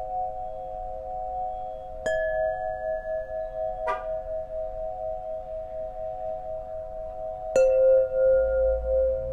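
Solfeggio tuning pipes ringing, several steady metallic tones sounding together. Fresh strikes come about two seconds in, about four seconds in and near the end, the last one the loudest.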